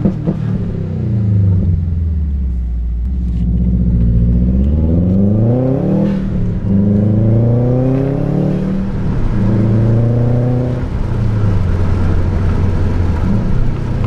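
Subaru WRX's turbocharged flat-four engine accelerating under boost, its note climbing and then dropping several times as it is revved through the gears. It runs smoothly, its cylinder 3 misfire cured by a new ignition coil.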